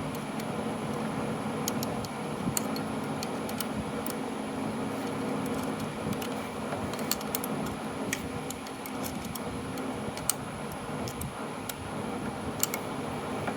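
Irregular light metallic clicks and ticks of a hand tool working a bolt loose on a Delco car starter, over a steady background hum.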